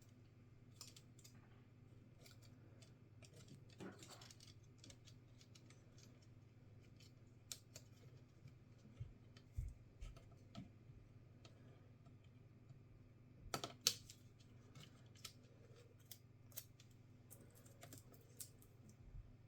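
Faint scattered clicks and taps from small plastic and metal parts and tools being handled on a laptop under repair, with a few louder clicks bunched together about two-thirds of the way through. A steady low hum lies under them.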